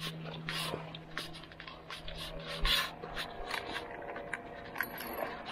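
Footsteps scuffing on sand and dry leaves, roughly three steps a second, over a steady low hum.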